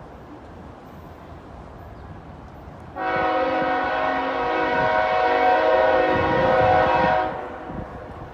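Freight locomotive air horn sounding one long blast of about four seconds, a chord of several steady tones that starts about three seconds in and cuts off near the end. A low rumble runs underneath.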